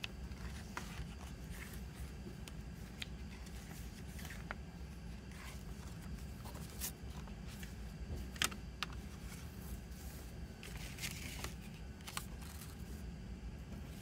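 Hands handling a CD booklet and plastic jewel case: soft paper rustling and scattered light clicks and taps, one sharper click a little past the middle, over a steady low hum.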